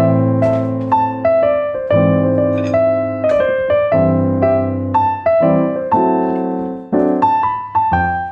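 Background piano music: a melody of single struck notes over held low chords that change every couple of seconds.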